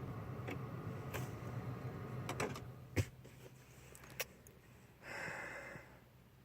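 Clicks and knocks inside the car, over a low steady hum that fades after a sharp click about three seconds in; a brief rushing noise near the end.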